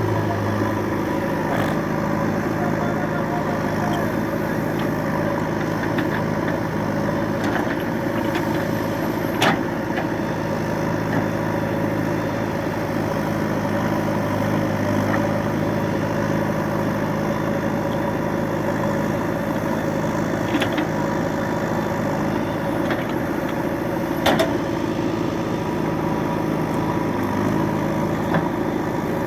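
Diesel engine of a JCB 3DX backhoe loader running steadily while it works, with a few short knocks scattered through.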